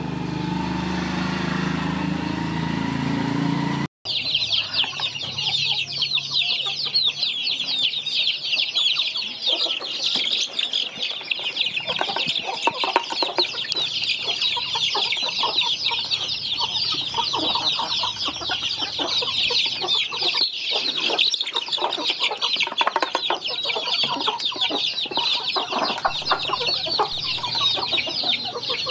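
A flock of young chicks cheeping densely and without pause as they crowd a feeder trough, many short high peeps overlapping. Before that, a motor's low hum runs for the first four seconds and cuts off suddenly.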